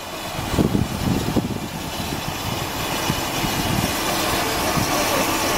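Small saddle-tank steam locomotive working slowly along the platform, a steady hiss of steam growing gradually louder as it draws near.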